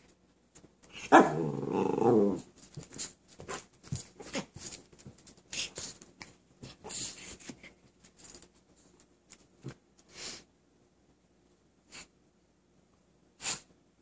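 A mini husky and a Chihuahua play-fighting: one growl of just over a second, starting about a second in, then a run of short scuffling noises that thin out to a few toward the end.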